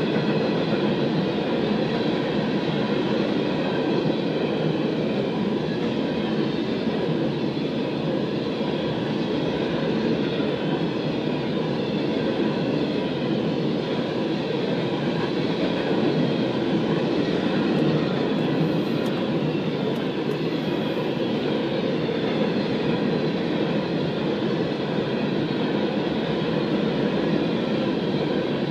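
Long freight train rolling steadily through a level crossing, a continuous rumble of steel wheels on the rails, heard through the car's windshield.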